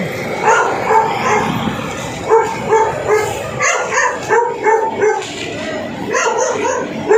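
A dog barking repeatedly in short yelping barks at uneven intervals.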